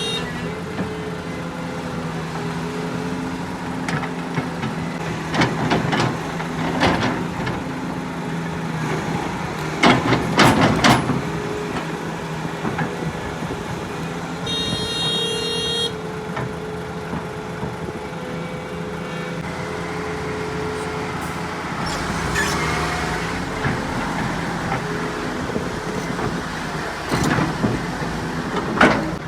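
Heavy diesel machinery running steadily on a construction site, an excavator and dump trucks, with several loud clattering, scraping bursts, the loudest about ten seconds in, and a short high-pitched tone about fifteen seconds in.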